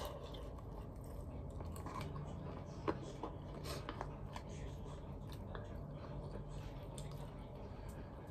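A person chewing food with small mouth clicks and smacks, and one sharp click about three seconds in.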